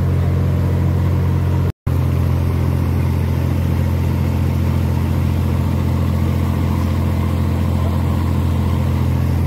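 Boat engine running at a steady speed, heard from aboard as a loud, even low drone, with a brief dropout about two seconds in.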